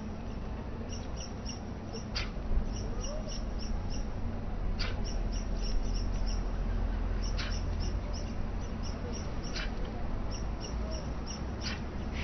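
White stork coughing hard, a short sharp huff about every two and a half seconds, as if trying to expel something. Small birds chirp rapidly throughout, over a low wind rumble on the microphone.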